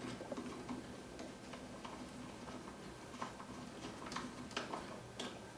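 Faint, irregular small clicks of a screwdriver driving a screw into the TV's chassis.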